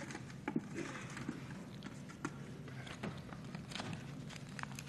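Scattered light clicks and rustles of things being handled at a lectern, picked up close by its microphones while lots are drawn, over a faint steady low hum.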